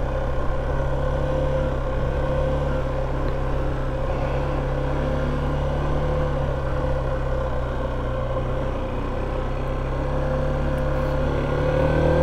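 Honda 125 cc learner motorcycle's engine running steadily at low speed in first gear, heard from the rider's position. The engine note rises slightly near the end.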